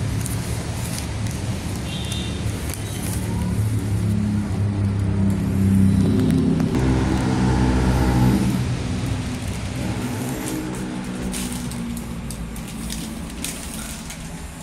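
A road vehicle's engine running close by, growing louder to a peak about halfway through and then fading away, as a vehicle passes or moves off.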